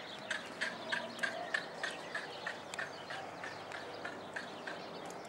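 A short high chirp repeated evenly, about three times a second, for some four seconds, over faint hoof sounds of a horse trotting on sand.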